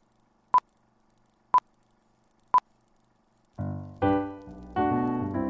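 Three short, identical high beeps one second apart, then piano music of chords and melody notes begins a little past halfway.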